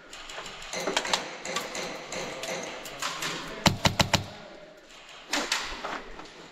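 An airsoft rifle fires a quick burst of about five sharp shots a little past halfway, amid scraping and crunching footsteps and gear rustle on a rubble-strewn floor.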